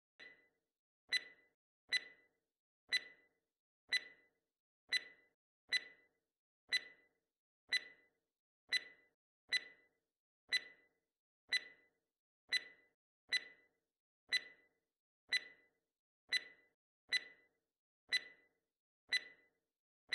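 Quiz countdown timer sound effect: a clock ticking steadily, about once a second.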